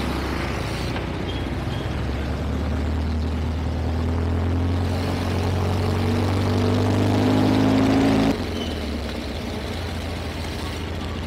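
Motor vehicle engines running in close street traffic: a steady low engine hum that rises in pitch as a vehicle speeds up, then cuts off suddenly about eight seconds in and gives way to a lower, steadier hum.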